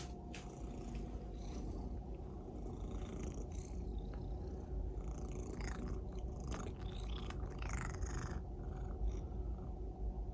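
Domestic cat purring steadily, with a cluster of light clicks and rustles about halfway through.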